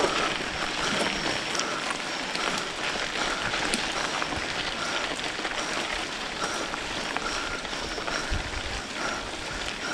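Mountain bike tyres rolling over a loose, dry dirt and gravel track among a pack of riders: a steady crackling rush with light rattle. A few low thumps near the end.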